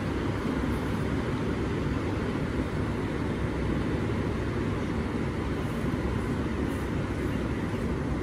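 Steady, low rushing roar of fast-flowing water, even and unbroken.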